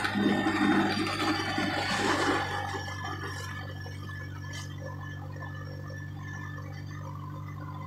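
Steady engine and road drone heard from inside a moving vehicle's cabin. A louder whooshing rush lasts about the first three seconds, then fades back into the drone.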